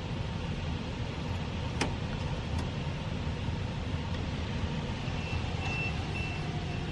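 Strong wind from an approaching severe thunderstorm, heard as a steady low rumble with a hiss over it. There are a couple of sharp clicks about two seconds in.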